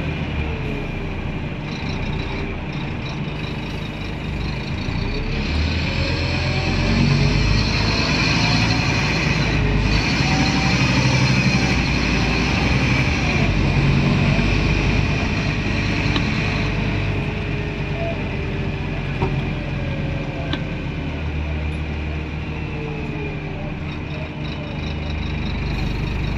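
Interior sound of a Scania N230UD Omnidekka double-decker bus under way, heard from a passenger seat: its five-cylinder diesel engine running with steady road and tyre noise. The engine note rises and falls a few times, loudest from about six to sixteen seconds in.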